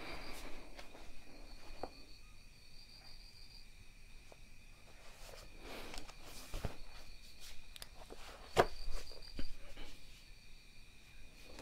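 Faint, steady high-pitched insect trilling, with a few scattered knocks and rustles; the loudest knock comes about two-thirds of the way through.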